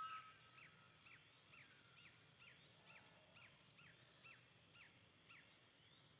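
A bird calling faintly in a steady series of about a dozen short notes, each dropping in pitch, roughly two a second, stopping a little after five seconds in.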